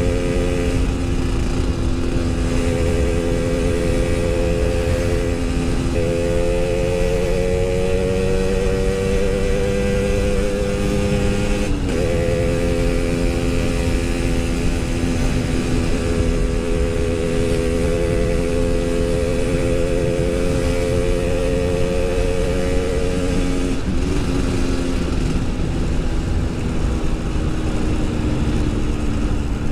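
Yamaha RX-King 135cc single-cylinder two-stroke motorcycle engine running while riding. Its pitch rises slowly, breaks off briefly about twelve seconds in, then holds and falls away near the end.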